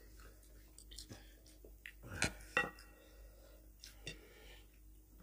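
Scattered clicks and clinks of ceramic bowls and plates during a meal eaten by hand. The loudest is a pair of knocks a little over two seconds in, the second ringing briefly like a ceramic clink.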